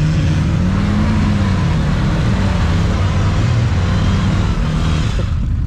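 Off-road vehicle engine revving, its pitch rising and falling twice, with a steady hiss over it that drops away about five seconds in.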